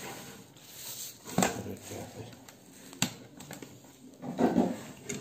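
Close handling noise from a hand against the phone's microphone: rubbing and knocks, with sharp clicks about a second and a half in and at three seconds, and a louder rub near the end.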